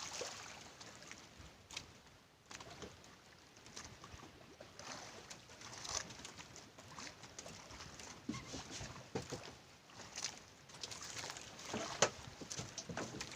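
Water splashing and lapping against the hull of a small fishing boat, with scattered knocks, the sharpest about twelve seconds in.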